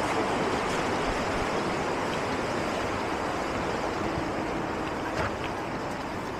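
Steady rushing noise of flowing water, fading slightly toward the end.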